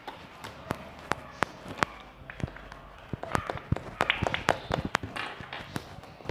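Slime being squeezed and poked, giving irregular sharp clicks and pops that come thicker and louder about halfway through.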